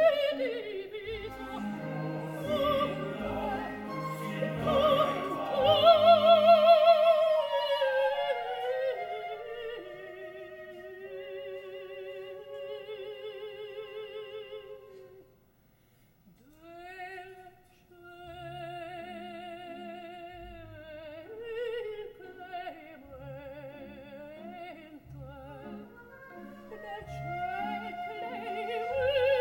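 Coloratura soprano singing an opera aria with a strong vibrato. The orchestra plays under her for the first several seconds; then the voice goes on nearly alone over sparse low notes. It breaks off briefly about halfway and starts again.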